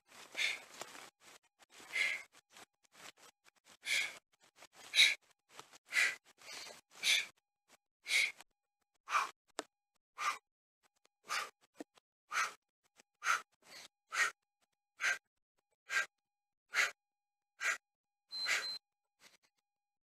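A man breathing hard through a high-intensity bodyweight exercise: short, forceful breaths at about one a second.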